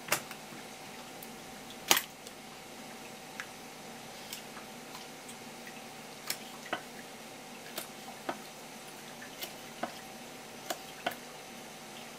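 Kitchen knife tapping and knocking on a cutting board while fish is cut up: about a dozen sharp, separate knocks at uneven intervals, often in pairs, the loudest about two seconds in, over a faint steady hum.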